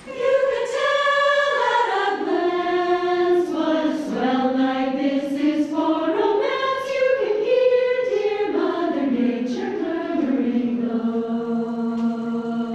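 Choir singing a slow, smoothly connected phrase, ending on a long held note near the end.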